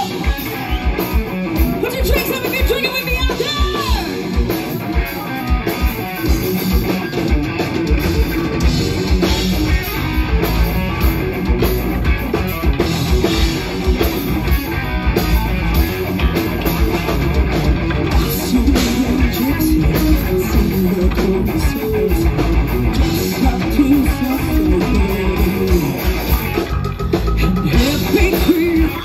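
A live hard rock band playing loudly: electric guitar, bass guitar and drum kit.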